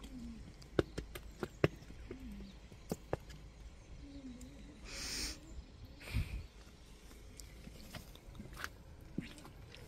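A bird cooing in short, low notes, three times over the first half. Several sharp clicks in the first few seconds are the loudest sounds, over a steady low rumble.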